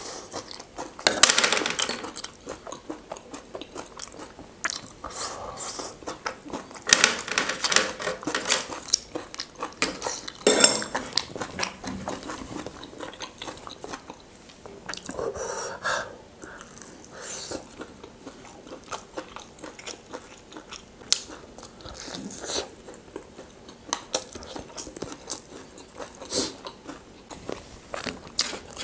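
Close-miked eating: chewing, biting and crunching food in irregular bursts, with plates and cutlery clinking now and then.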